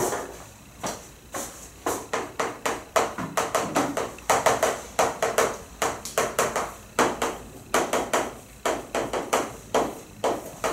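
Chalk tapping and scratching on a blackboard as words and a formula are written: a quick, uneven run of short clicks and scrapes, several a second.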